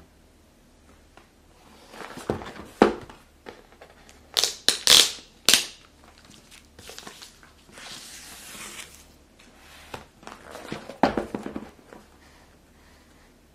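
A cardboard pistol box handled and turned over on a table. Sharp knocks and taps come about a third of the way in, a longer scraping rustle follows past the middle, and there is more handling noise near the end.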